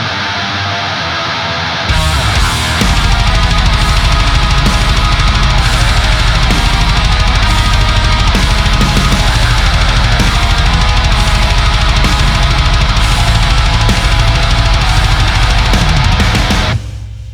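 Heavy metal riff on HM-2-style chainsaw-distorted electric guitar (Lichtlaerm Audio Medusa pedal into a Peavey 6505 1992 Original) with programmed drums. The guitar plays alone for about two seconds, then the drums come in with steady fast kick drum and cymbals, and the music stops abruptly near the end.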